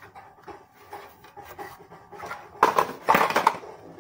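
Hard plastic vacuum-cleaner attachments being handled and fitted together: light rubbing and small ticks, then a loud burst of clattering and clicking about two and a half seconds in.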